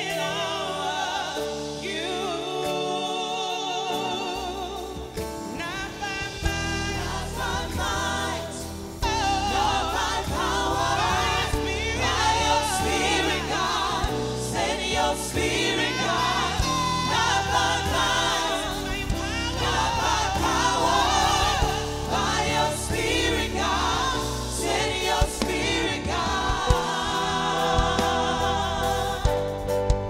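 Live gospel worship music: women's voices singing with keyboards and drums. About nine seconds in, the band comes in heavier and louder in the low end.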